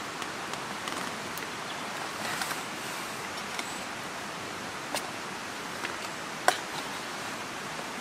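Steady outdoor background hiss with a few scattered sharp crackles and clicks, the clearest about five and six and a half seconds in.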